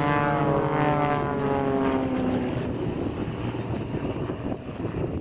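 Propeller-driven aerobatic display aircraft (XtremeAir Sbachs) flying past: the piston engine and propeller note drops steadily in pitch over the first couple of seconds as they go by, then fades to a duller drone.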